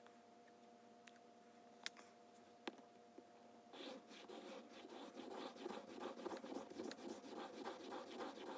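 A few light clicks, then from about four seconds in a push dagger's blade is stroked rapidly back and forth across a wet whetstone, a steady run of gritty scraping strokes several times a second.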